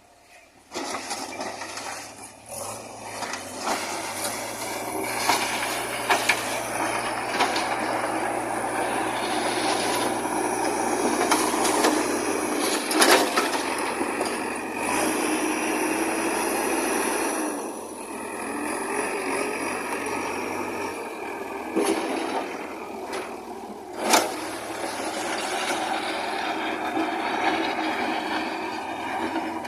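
JCB backhoe loader running and working, its engine and hydraulics under load, with a few sharp knocks.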